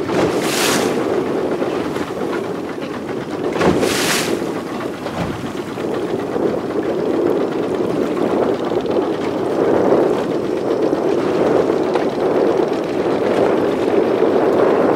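Speedboat running over open sea: a steady drone of the boat moving through the water, with wind on the microphone. Two short hisses cut through it, one just after the start and one about four seconds in.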